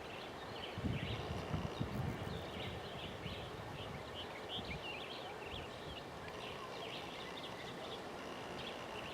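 Outdoor background noise with many short bird chirps throughout, and a few low thumps in the first two seconds.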